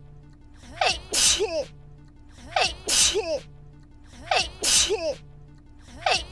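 A woman's sneeze looped, the same sneeze repeating about every 1.8 seconds: a short voiced 'ha' with a gliding pitch, then a sharp hissing 'choo'. Three full sneezes, with a fourth starting at the very end.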